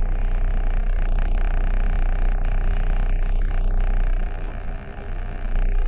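Steady low rumble of a stopped car's idling engine, heard from inside the cabin. It eases off about four seconds in and comes back near the end.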